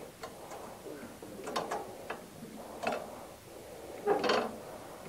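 Homemade slap-shifter lever on a Craftsman riding mower being wiggled back and forth by hand, clicking and clunking a few times in its loose ball-joint mount, which has about a quarter inch of play.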